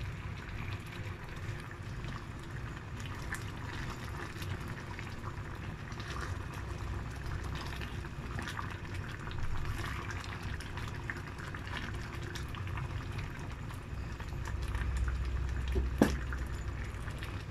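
Pot of mung bean stew bubbling steadily on the stove, with faint crackles as it simmers and is stirred with a ladle. A single sharp knock comes near the end.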